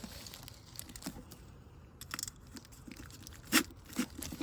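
Handling noises of a camping cook set being unstrapped and taken apart: scattered light clicks, rustles and small knocks, with one sharper knock about three and a half seconds in.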